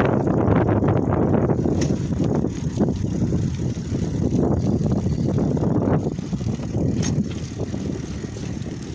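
Wind buffeting the microphone of a camera carried on a moving bicycle: a loud, uneven low rush that eases a little after about six seconds.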